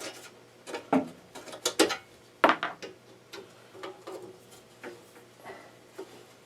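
Hand tools clinking and knocking against the screws and casing of a small air compressor as its cover screws are worked loose: a handful of sharp taps and clatters, the loudest in the first few seconds, fainter handling after.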